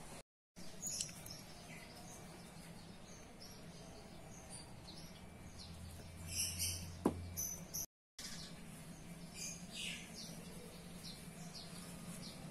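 Small birds chirping in the background, short high chirps scattered throughout, with a single sharp tap about seven seconds in.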